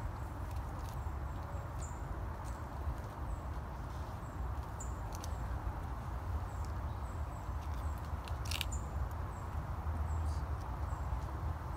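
Outdoor ambience: a steady low rumble of wind on the microphone, with a high, short chirp repeating about every half second to a second, and one sharp click a little past the middle.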